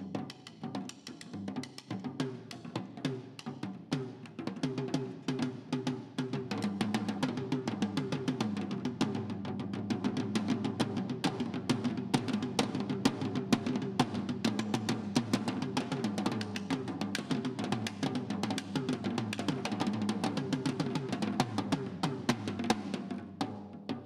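Two snare drums played with sticks as a duet: rapid interlocking strokes that thicken into dense, nearly continuous playing about six seconds in, with a brief break near the end.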